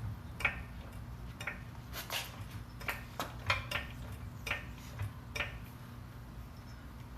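Floor jack being pumped under the car, giving a sharp metallic click or clank about every half second to a second, over a low steady hum.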